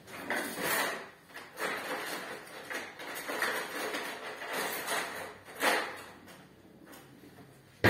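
Someone rummaging off-camera to fetch a utensil: a string of rustles, scuffs and knocks, ending in one sharp click, the loudest sound.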